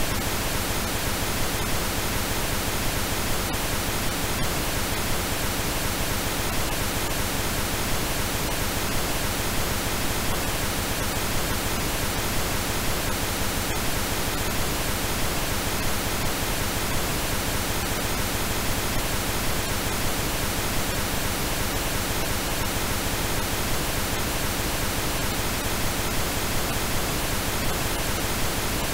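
Steady synthetic pink noise: an even, unchanging hiss spread across the whole range from low to high.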